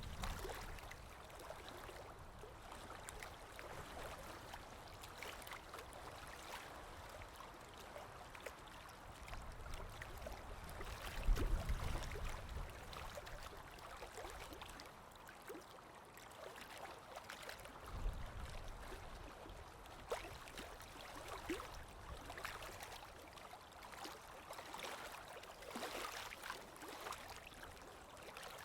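Sea waves washing and fizzing on a shore in a steady rolling wash, with a heavier low thump about eleven seconds in and another a few seconds later.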